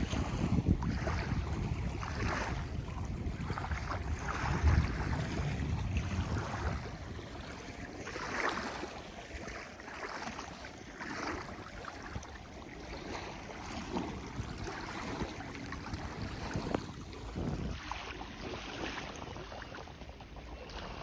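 Wind buffeting the microphone over water washing and splashing at sea, with heavier low rumbling gusts in the first several seconds, then easing.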